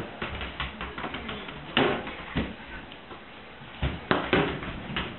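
A soccer ball being kicked and bouncing on a hard floor, with a running patter of taps and several sharp thuds: the loudest about two seconds in, and a quick cluster of three near four seconds.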